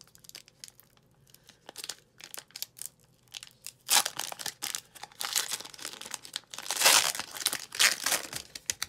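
The shiny foil wrapper of a 2019-20 Panini Chronicles basketball card pack being torn open and crinkled by hand. There is light handling of cards at first, then loud crinkling and tearing of the wrapper from about four seconds in.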